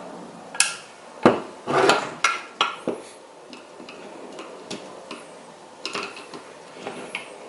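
Small metal parts and clips of a VW 02J shifter assembly clinking and clacking as they are handled and taken apart: a run of sharp knocks in the first three seconds, then scattered lighter clicks.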